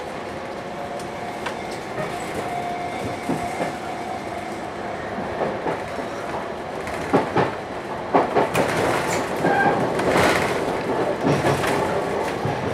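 Sotetsu electric train set 7751 running at a reduced 45 km/h under a strong-wind speed restriction, heard from aboard, its wheels clacking over rail joints. A quick run of sharp clacks comes about seven to eight seconds in, and the running noise grows louder around ten seconds.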